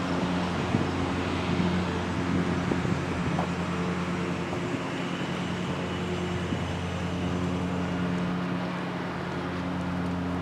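Steady low mechanical hum of a motor or engine running at constant speed, holding several even tones throughout.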